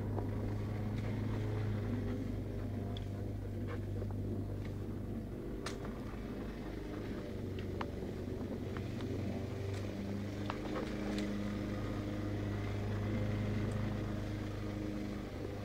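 A steady low motor hum, an even drone with no rise or fall, with scattered faint clicks over it.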